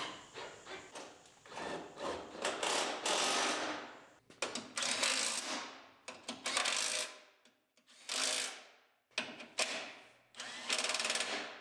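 Compact cordless impact driver running in several short bursts of half a second to a second each, tightening the front fender and radiator-support bolts.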